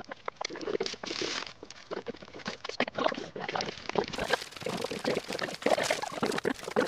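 Metallic foil balloons crinkling as they are handled, then a small hand balloon pump hissing in quick strokes as it inflates a latex balloon. Irregular short crackles and clicks throughout.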